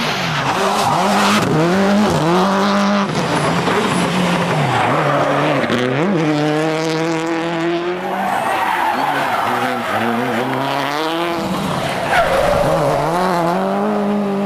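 Subaru Impreza WRC rally car's turbocharged flat-four engine revving hard, its pitch climbing and dropping again and again as the car accelerates, lifts off and changes gear. The revs are held high and steady for a couple of seconds in the middle.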